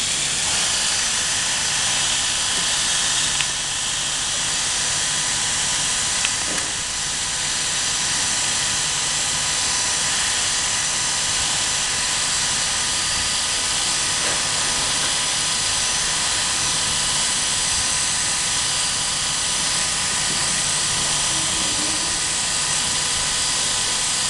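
Electric dog clippers running steadily, with a high whine and hiss and a couple of faint clicks in the first several seconds.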